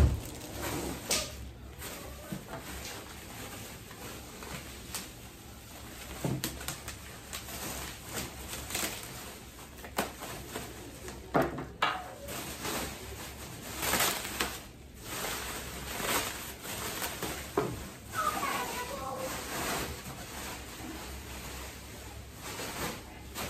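Plastic bubble wrap rustling and crinkling as it is pulled off a folded metal massage table trolley, with irregular knocks from the frame being handled.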